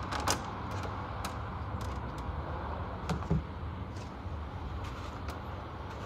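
Compact tumble dryer door latch clicking as the door is pulled open, then two low knocks a little after three seconds as the plastic door swings open, over a steady low hum.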